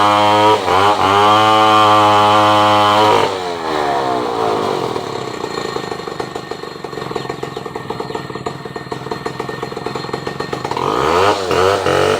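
Chainsaw engine held at high revs, with a brief dip near the start. After about three seconds it drops back to a lower, pulsing idle, and it revs up again near the end.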